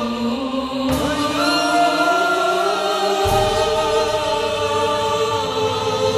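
Choir music: many voices singing long held notes together, with abrupt changes in the music about one second and three seconds in.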